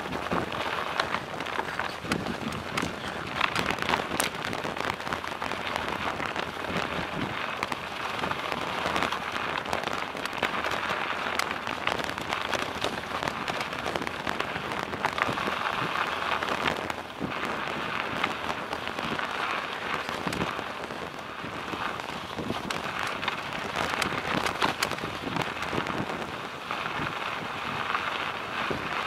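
Bicycle tyres rolling over snow: a steady crackling crunch, dotted with frequent small clicks and rattles.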